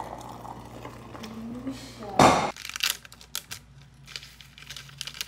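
Liquid pouring from a stainless-steel saucepan into a ceramic bowl, with a short rising tone as the bowl fills. About two seconds in comes a loud, sharp rip, then the quick crackling crinkle of a plastic packet being handled.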